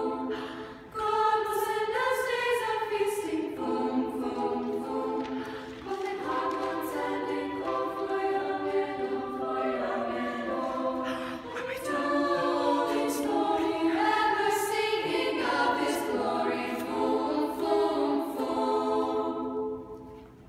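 High school choir singing a cappella, holding sustained chords; the singing fades away near the end.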